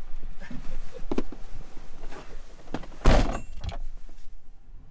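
Ford Transit van's driver door slammed shut about three seconds in, after a few lighter knocks of someone climbing into the seat. A low engine hum runs underneath.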